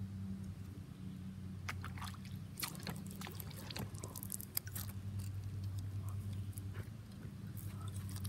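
Irregular small splashes and drips of water close by, bunched between about two and five seconds in, over a steady low hum.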